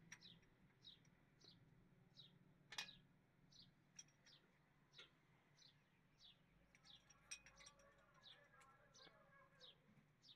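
A bird chirping steadily, a short falling chirp about twice a second. A few light metallic clicks, the loudest about three seconds in, come from a screwdriver and spanner working on the engine's valve tappet adjusters.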